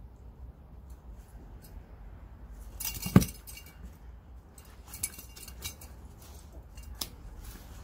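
A dog nosing and mouthing a fish toy on dry grass and twigs: scattered light clicks and rustles, with one sharp knock about three seconds in.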